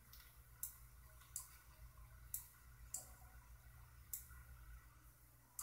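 Computer mouse clicking: about five sharp, single clicks at irregular intervals, over a faint low steady hum.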